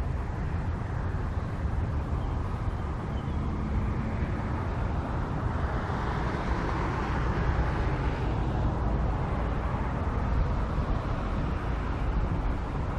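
Steady outdoor background noise: a low rumble of distant road traffic, swelling slightly about halfway through and then easing.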